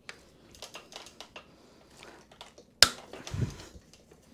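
Small metallic clicks and taps of a tool and bike parts as a rear derailleur is worked off a mountain bike frame, with one sharp click about three seconds in followed by a short low clatter.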